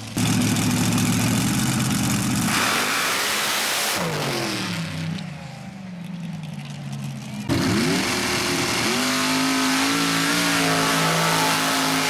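Race engines of mud-run vehicles at full throttle: one holds high revs, then falls in pitch from about four seconds in as it comes off the throttle; a second engine starts abruptly about seven and a half seconds in, revs up, and holds high revs to the end.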